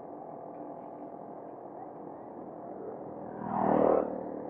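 Steady wind and road rush from riding a bicycle on a concrete road, heard on a handlebar camera, with a louder rush about three and a half seconds in that fades within a second.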